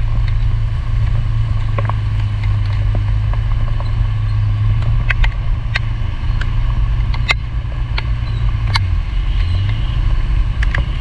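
Steady low hum of a motorbike engine riding through heavy rain, over a constant hiss of rain and wet road with scattered sharp ticks. About nine seconds in, the engine note dips briefly and then rises again.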